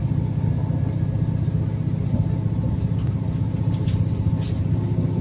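Diesel train running, with a steady low engine rumble and drone and a few faint clicks in the middle.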